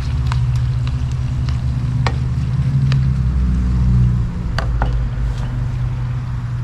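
Pork pieces frying in hot oil in a pan, sizzling with scattered pops and crackles over a steady low hum.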